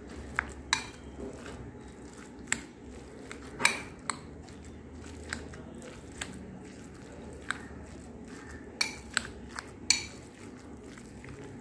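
A metal spoon clinking against a glass bowl at irregular intervals while stirring minced chicken momo filling.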